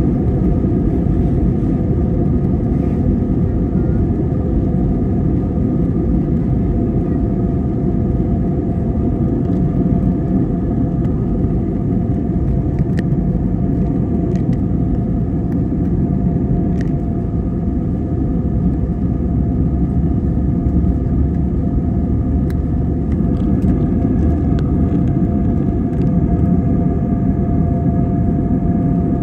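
Steady cabin noise of an Airbus A320 taxiing, heard from a window seat by the wing: the engines hum evenly over a low rumble from the wheels on the taxiway.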